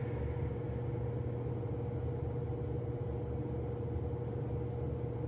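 A steady low mechanical hum with a faint, thin, steady tone above it, unchanging throughout.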